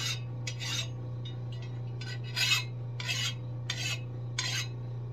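Hand file rasping across a lawn mower blade's edge to take off the burr, in about seven separate strokes, the loudest about halfway through. A machine hums steadily underneath.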